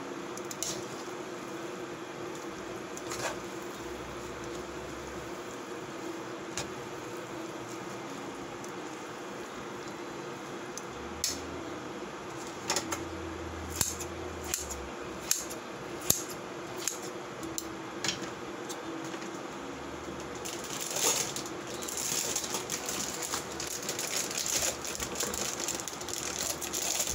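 Steady mechanical hum with a held tone throughout, with a run of sharp clinks of utensils against cookware between about eleven and eighteen seconds in. From about twenty-one seconds a hiss of the pancit guisado sizzling in the pan begins and grows louder.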